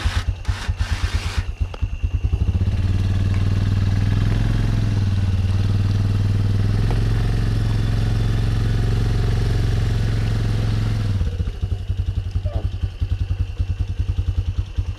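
An engine idling with a rapid low throb. About two seconds in it revs up and runs steadily at higher speed for about eight seconds, then drops back to a throbbing idle.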